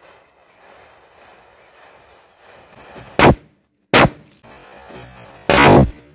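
Burning matchsticks fizzing and crackling faintly, then three loud firecracker bangs from small Diwali crackers about three, four and five and a half seconds in, the last one longer.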